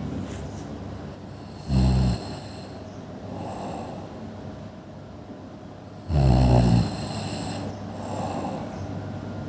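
A person snoring: two loud snores about four and a half seconds apart, each followed a second or so later by a softer, breathy sound.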